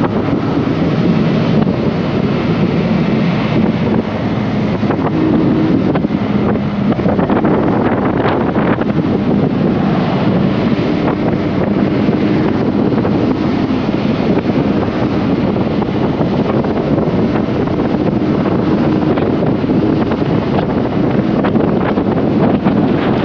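Loud wind rush on the microphone while riding a Honda CBR150R motorcycle, with the engine's single-cylinder hum faintly under it.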